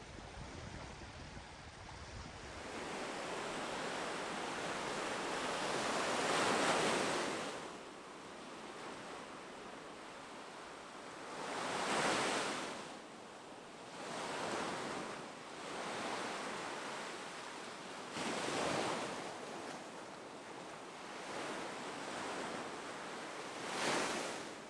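Small Baltic Sea waves breaking and washing up on a sandy beach, about five waves swelling and fading every four to six seconds. In the first couple of seconds a low wind rumble on the microphone cuts off.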